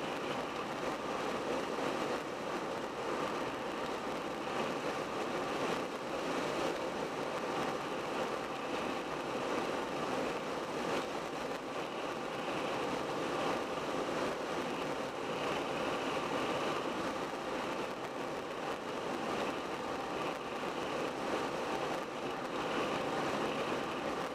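Steady road noise of a car driving along a highway: tyres rolling on the pavement, with the engine running underneath.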